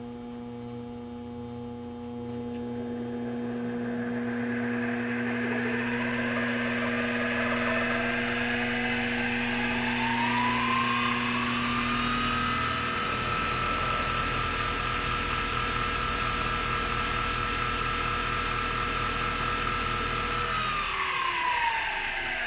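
Belt-driven variable-speed mini-lathe's motor and spindle speeding up from a slow crawl to full speed, about 2100 RPM, a rising whine over about ten seconds that then runs steadily. Near the end the speed is turned down and the whine falls.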